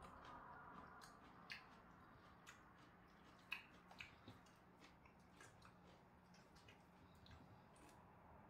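Faint, scattered clicks and taps of an eating utensil against a small bowl and plates, with quiet chewing, over a low room hum; the sharpest click comes about three and a half seconds in.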